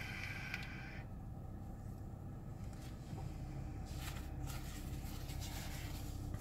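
A draw on a box-mod vape, its coil hissing and whistling, ends about a second in. A long breathy exhale of vapor follows from about four seconds in, over the car's steady low hum.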